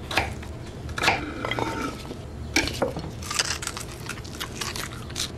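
Kitchen clatter of plates and utensils and a child biting and chewing fries: a scatter of short clicks and crunches, with a brief ringing clink about a second and a half in.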